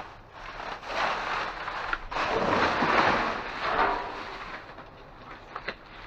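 Cardboard boxes and paper rustling and crumpling as they are rummaged through by hand, with many small crackles; loudest in the first four seconds, quieter near the end.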